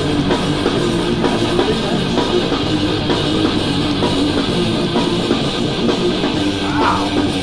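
A rock song with guitar and drums playing at full volume through a Rockville RPB24 portable Bluetooth speaker, with strong bass and no audible distortion.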